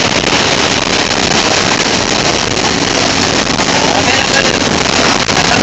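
Steady loud noise inside a Kerala State RTC super fast bus driving through rain: rain on the windscreen and body blended with engine and wet-road tyre noise.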